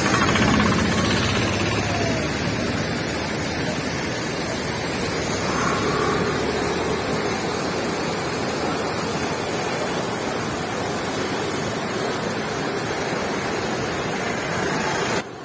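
A river in flood after heavy rain, its muddy water churning in rapids past a low bridge: a steady, loud rush of turbulent water.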